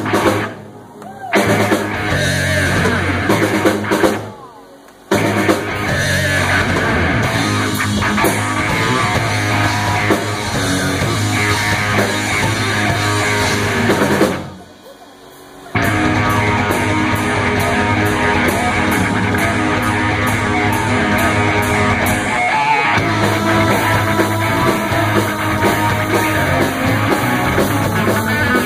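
A live heavy-metal band playing, with drum kit, electric guitars, bass and keyboards. The band stops short three times, for about a second each, before crashing back in.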